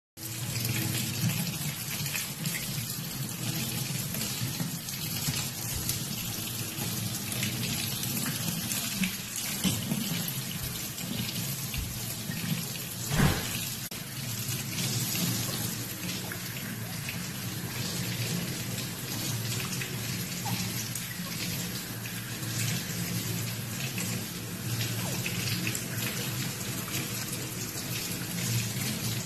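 Kitchen faucet running in a steady stream, the water splashing over a French bulldog puppy being rinsed under it. A single knock sounds about halfway through.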